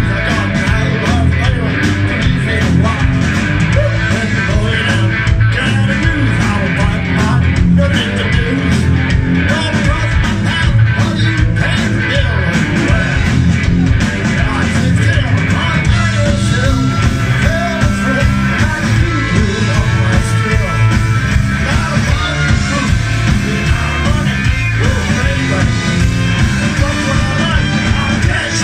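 Live rock-and-roll band playing loud and without a break: electric guitar, bass guitar, drums and saxophone, with a lead singer on a microphone.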